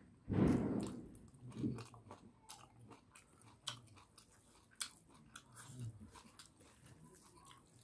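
A person chewing cooked cow intestines with rice, with scattered short wet clicks from the mouth. A louder low thump comes about half a second in.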